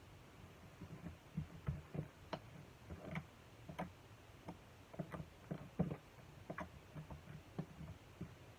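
Irregular light clicks and taps, a few per second, starting about a second in, like small objects being handled close to the microphone.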